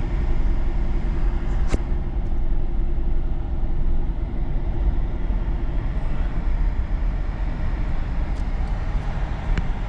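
Steady low road and engine rumble heard inside a pickup truck's cab as it drives slowly over a snow-covered road, with one sharp click about two seconds in.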